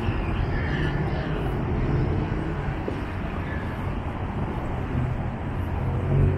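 City road traffic: a steady rumble of car engines and tyres going past.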